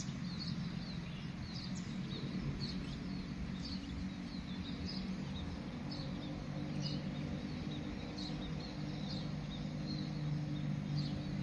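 Small birds chirping, short high calls repeating about once a second, over a steady low hum.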